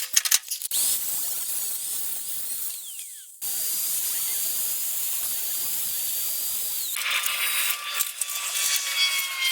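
Welding on expanded metal: a steady high hiss holds for a few seconds, breaks off sharply, then starts again for a few more. Near the end it gives way to clattering and clinking metal.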